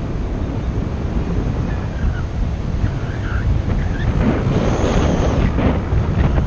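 Wind buffeting the microphone of a camera carried by a paraglider pilot in flight: a steady low rushing rumble that swells briefly a little past the middle.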